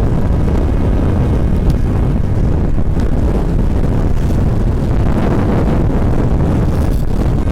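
Strong gusting mountain wind buffeting the microphone: a loud, steady low rumble with constant flutter.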